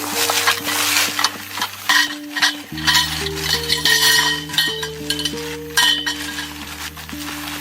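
Food sizzling in a pan while a utensil stirs it, with frequent short clinks of the utensil against the pan, over soft background music.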